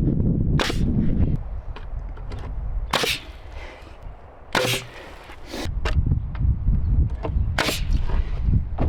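Four sharp knocks a second or two apart, over a low rumble.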